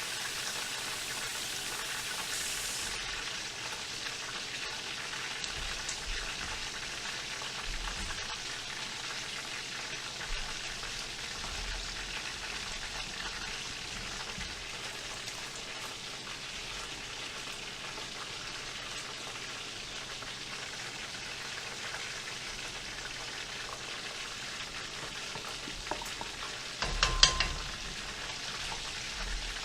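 Food frying in hot oil, a steady crackling sizzle, with a short clatter near the end.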